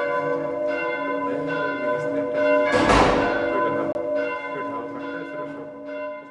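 Church bells rung by hand: a new stroke about once a second over a long, overlapping hum. One louder, harsher clang comes about three seconds in, and the ringing fades near the end.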